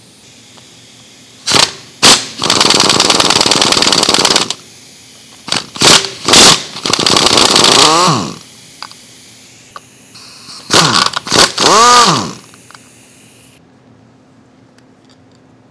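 Impact wrench backing out the bolts that hold a forklift drum brake's backing plate. It comes in several short blips and longer runs of rapid hammering, each ending with the motor whining down.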